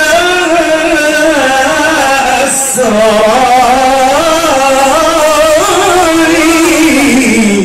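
Male qari reciting the Quran in a melodic Arabic chant style: one long, ornamented phrase with a wavering pitch that slides down near the end.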